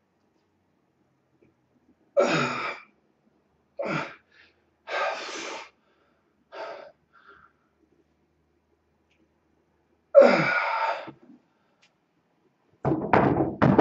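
A man's forceful, strained exhalations during dumbbell presses to failure, five of them a second or more apart. Near the end, the hex dumbbells knock down onto the wooden floor.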